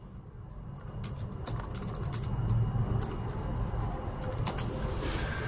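Typing on a computer keyboard: irregular key clicks, starting about a second in.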